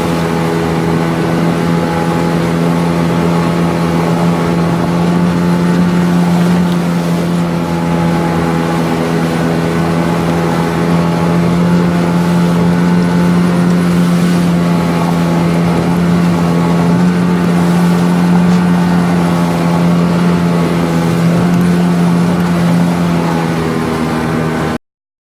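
9.8-horsepower outboard motor running at a steady throttle, one unchanging drone that stops abruptly just before the end.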